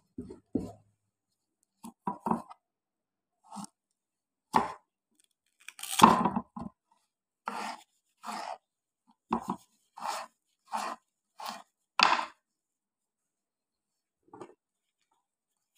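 Gloved hands rubbing spice coating onto raw fish steaks and handling them in a metal basin while marinating them for frying. More than a dozen short, irregular knocks and rubs, with silent gaps between.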